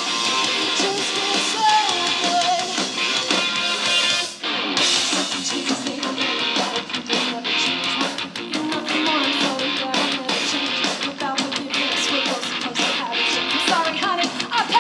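Live rock band playing amplified electric guitars, thin with little deep bass, with a brief break about four and a half seconds in.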